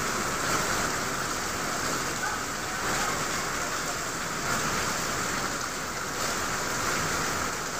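Very heavy rain falling steadily: a dense, even hiss of downpour.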